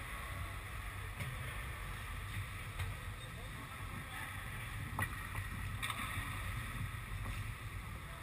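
Ice hockey rink ambience: a steady low rumble with faint voices of players, broken by a few sharp clicks on the ice, the loudest about five seconds in.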